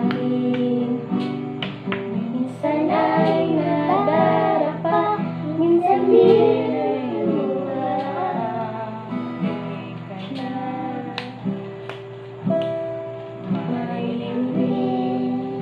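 Acoustic guitar chords being played, with a woman and children singing along; the singing is strongest in the first half and thins out later while the guitar carries on.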